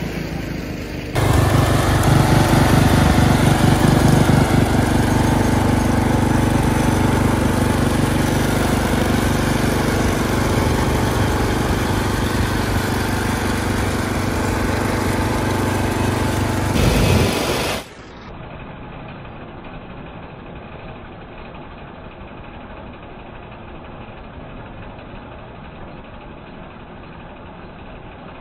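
Kohler K301 12 hp single-cylinder engine on a Wheel Horse garden tractor running steadily, getting suddenly louder about a second in. Near the end the sound drops abruptly to a quieter, duller steady idle.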